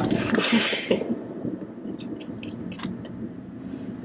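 A person sipping and swallowing a drink from a can, with a short slurp in the first second, over the low hum of a moving car's cabin.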